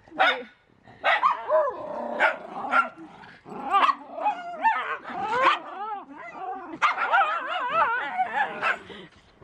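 Several miniature schnauzers barking, yipping and whining at once, with wavering whines overlapping short barks. It is a worked-up fuss from dogs unhappy at being left out of the front yard.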